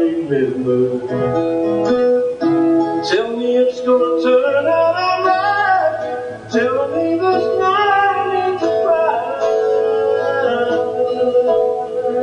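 Live band playing an instrumental passage of a pop song, with guitar prominent, a steady bass note underneath and a melody line that slides between notes.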